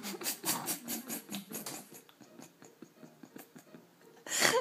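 Baby smacking his lips and chewing mashed banana: a run of short wet clicks, about three or four a second, that fades after a couple of seconds, then a louder short sound near the end.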